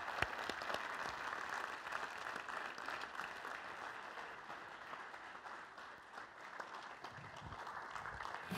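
Audience applauding, dying down gradually over several seconds.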